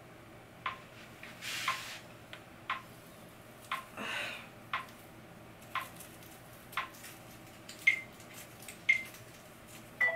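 Sharp clicks about once a second, each with a brief ring, and two short hisses between them, one near the start and one midway.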